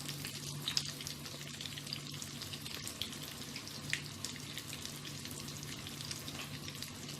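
Breaded fish fillets frying in hot oil in a frying pan: a steady sizzle with scattered small pops and crackles, over a faint low hum.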